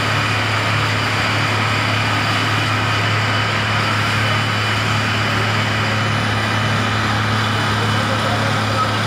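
An engine running steadily, a constant low hum under an even noise.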